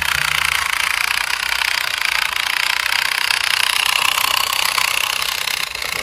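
A small motor's steady buzzing rattle, with no clear pitch and a rapid flutter in its level.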